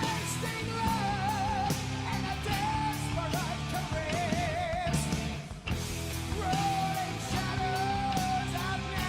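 Rock music: a lead melody with wide vibrato over guitars and drums.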